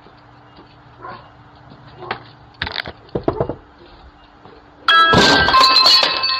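Doorbell chime struck once, about five seconds in: a sudden bright ding whose several tones ring on and slowly fade. A few fainter, short sounds come before it.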